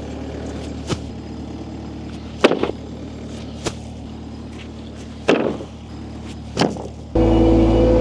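Six sharp knocks, irregularly spaced a second or so apart, over a low steady machinery hum; a loud engine with a steady tone cuts in suddenly near the end.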